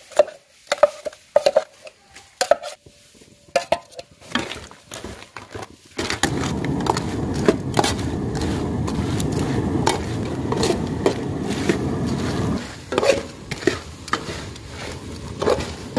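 A steel spoon scrapes and clinks against a steel bowl and metal pot as thick masala paste is scraped onto boiled crabs. About six seconds in, a perforated steel ladle starts stirring the wet masala and crab pieces in the pot, making a steady, dense mixing noise for several seconds. The clinks and scrapes come back near the end.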